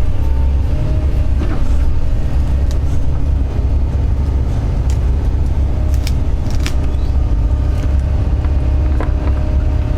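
Doosan DX140 excavator's diesel engine running steadily under load, heard from inside the cab, with a few sharp cracks and knocks scattered through.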